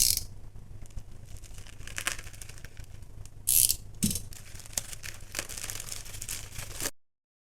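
Packaging being handled and opened: cardboard and wrapping rustling, scraping and clicking, with a louder brief rustle about halfway through. It cuts off suddenly near the end.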